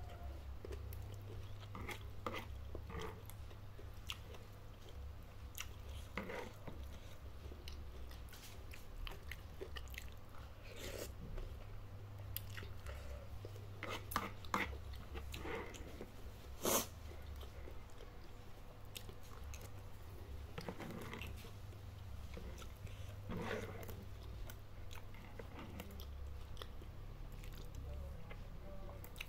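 Close-miked chewing and biting of spicy noodles and bok choy, with scattered short crunchy clicks, the sharpest two-thirds of the way through, over a steady low hum.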